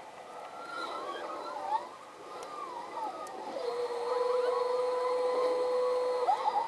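Newborn puppies squeaking and whimpering in many short rising-and-falling squeaks. From about halfway in, a steady held tone runs for nearly three seconds and then stops.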